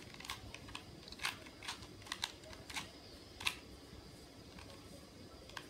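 Plastic clicks and clacks of a 2x2 puzzle cube being turned by hand: about eight sharp clicks at uneven spacing, roughly one every half second, for the first three and a half seconds, then one more near the end.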